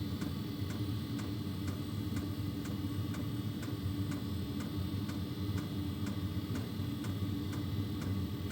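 Small diesel air heater running: a steady hum from its blower, with the fuel dosing pump ticking evenly about twice a second.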